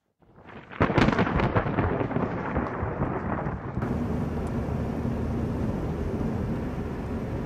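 A thunderclap: a sharp crackling crack about a second in, rumbling and dying away over the next few seconds. Just before the four-second mark it gives way to a steady car-cabin hum of engine and tyres on the road.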